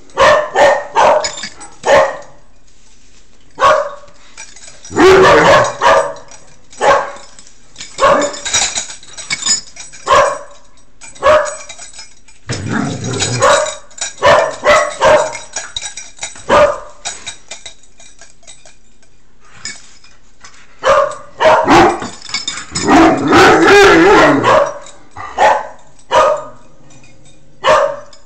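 Two dogs play-fighting, barking and yipping in irregular bursts, some short and single, others running together for a second or two.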